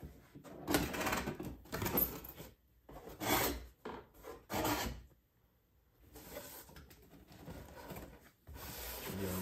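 Large cardboard toy box sliding and scraping against its cardboard shipping carton: several separate scraping strokes in the first five seconds, then a softer continuous rubbing.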